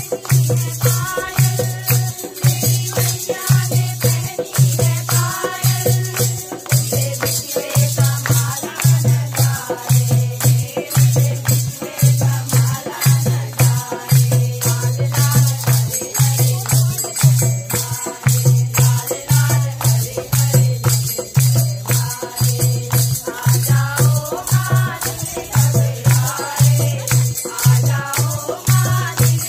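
Kumaoni devotional bhajan music: a drum beating a steady, even rhythm under jangling, rattling hand percussion, with a voice singing the tune.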